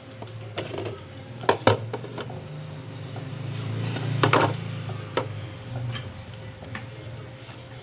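Hard plastic kitchenware, a colander and a slotted plastic basket, knocking and clattering as it is handled and set down on a stone countertop, a few sharp knocks with the loudest about four seconds in. A steady low hum runs underneath.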